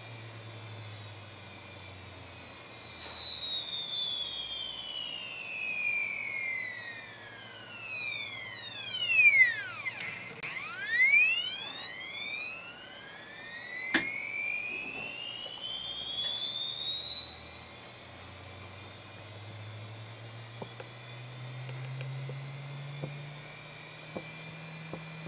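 Stepper motor whine from a motor driven by the TRM SMC controller at step rates up to about 64 kHz. The pitch glides smoothly down to its lowest point about ten seconds in, then glides back up and settles into a steady high whine near the end, as the controller ramps the step frequency down and back up. A single click comes a little past the middle.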